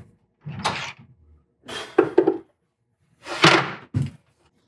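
Heavy six-jaw lathe chuck clunking as it is pulled off the lathe spindle nose and set down on a wooden board on the bed: a few heavy knocks and scrapes of metal.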